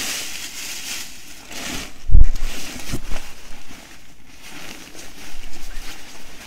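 Plastic shopping bag rustling and crinkling as it is handled and opened, with a loud thump about two seconds in and a few lighter knocks.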